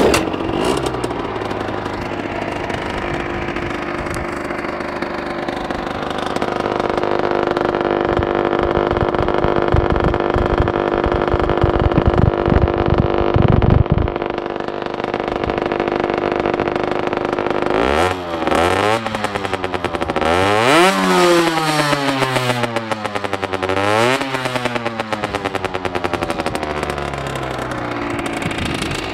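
Derbi Senda Xtreme R motorcycle with a Metrakit Thrower aftermarket exhaust, running at a steady idle. About two-thirds of the way in it is blipped up several times, the pitch rising and falling with each rev, before settling back to idle.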